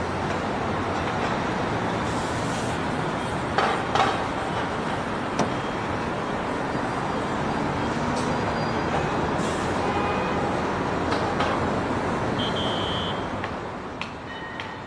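Steady rushing background noise, with a few short knocks about four and five seconds in; it drops a little near the end.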